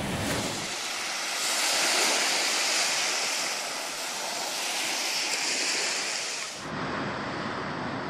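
Small waves washing onto a sandy beach, an even hiss of surf that swells and eases. A little before the end the sound cuts abruptly to a duller surf with more low rumble.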